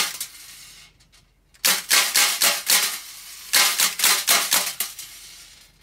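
MGC Glock 17 Gen2 gas-blowback airsoft pistol firing: one shot at the start, then two rapid strings of about half a dozen sharp cracks each, the slide cycling with every shot.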